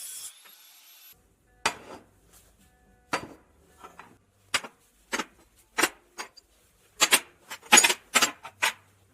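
Steel parts clinking and knocking against each other and the work surface as they are handled: about a dozen sharp metallic knocks at uneven intervals, several close together near the end, after a faint hiss that dies away in the first second.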